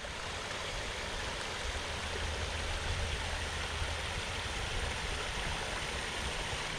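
Creek water flowing steadily, an even rushing hiss with no changes.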